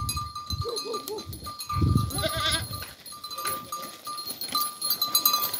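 A herd of goats on the move: goats bleating, once near the start and again about two seconds in, over the ringing clink of small livestock bells.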